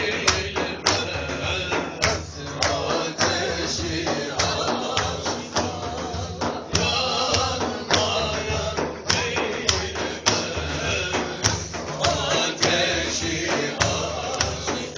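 Music with a steady beat struck on a frame drum with jingles, under a wavering melody.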